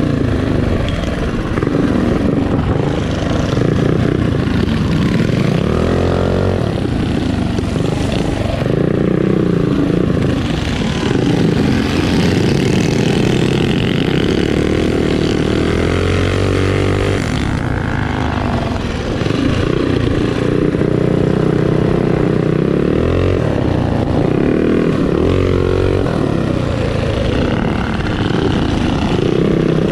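Mini bike's small single-cylinder engine running hard under the rider, its pitch rising and falling again and again as the throttle opens and closes.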